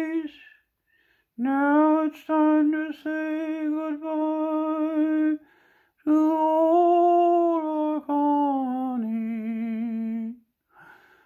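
A man humming a slow tune in long, held notes, in two phrases with a short pause between them; the last note drops lower and wavers.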